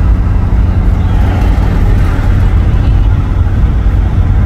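Steady road and wind noise from inside a vehicle moving at highway speed: a loud, even low rumble with no break.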